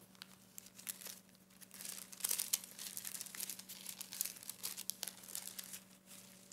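Bible pages being leafed through: a run of irregular soft rustles and crinkles of thin paper, over a faint steady hum.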